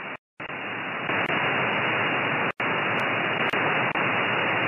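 Receiver hiss from an RTL-SDR with a downconverter, tuned to 2320 MHz in upper sideband with no signal present: a steady, dull static with no treble above the SSB filter. It cuts out briefly twice.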